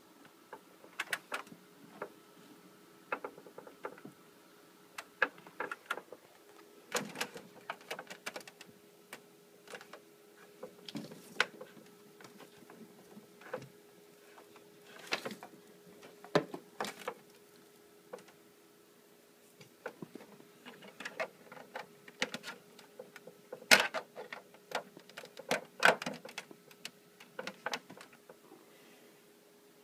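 Irregular clicks, taps and knocks of hands working on a desktop computer and its parts, over a faint steady hum.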